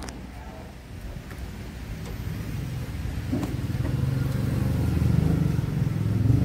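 Container truck's diesel engine running steadily, a low hum that grows louder from about a second in.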